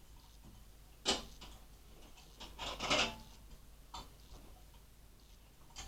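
Small clicks and knocks of computer parts being handled: one sharp click about a second in, a short clatter around three seconds, and lighter clicks later.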